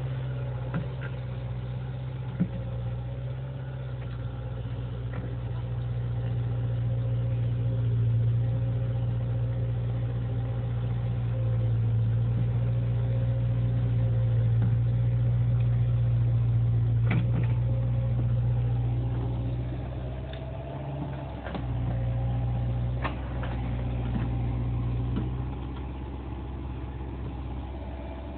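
CAT 305 mini excavator's diesel engine running, its note swelling louder through the middle as it works and easing off after about twenty seconds, with a few sharp knocks near the end.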